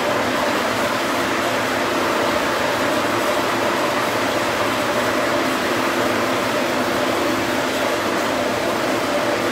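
Steady rushing noise with a faint constant hum in a chassis dyno cell: a large cooling fan blowing while the strapped-down Honda Civic runs at a steady speed on the rollers, with no revving.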